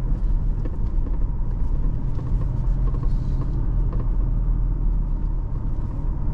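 Cabin noise of a 2024 Toyota Hilux pickup on the move: a steady low rumble of engine and road. Faint scattered ticks of a loose item rattling sit on top, the rattle being hunted for.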